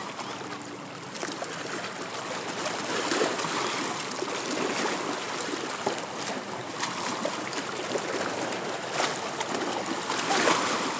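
Lake water sloshing and splashing around people wading in the shallows among shoreline boulders, with a few louder splashes now and then.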